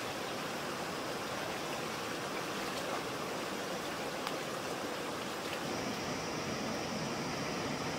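Shallow stream flowing and babbling over rocks, with a few faint splashes from wading feet. A thin, steady high tone joins about two-thirds of the way through.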